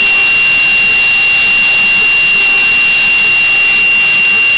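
A mini CNC router's spindle running an end mill through carbon steel sheet. It makes a loud, steady high-pitched whine over an even hiss of cutting.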